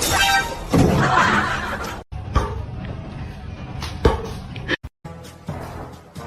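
Music and voices with three sharp knocks or slaps, broken twice by brief drops to silence.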